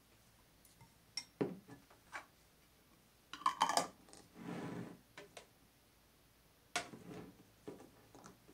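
Glass jars knocking and clinking as they are picked up and set down on a tabletop among ceramic bowls, with a cluster of clinks a little past three seconds and a short rasping noise just after, then a few more knocks near the end.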